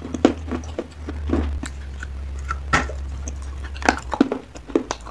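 A person biting and chewing soft wet clay close to the microphone: irregular wet crunches and chews, the loudest just under three seconds in and a cluster around four seconds in.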